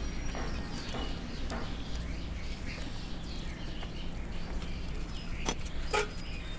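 Light metallic clicks and clinks of an 8 mm T-handle wrench loosening the bolts of a Hero Splendor Plus BS6's magneto cover, with two sharper clicks near the end.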